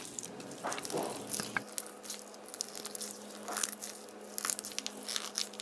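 Red mesh stress ball of gel beads being squeezed and kneaded by hand, making quiet, irregular sticky crackles and squelches as the beads push through and slip back against the netting.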